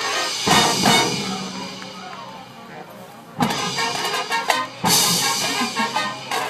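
High school marching band playing brass and drums: loud accented hits about half a second and a second in, a held chord that fades away, then the full band coming back in strongly at about three and a half seconds and again near five seconds.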